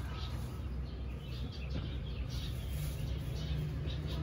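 Background room tone: a steady low hum with a few faint, short high chirps.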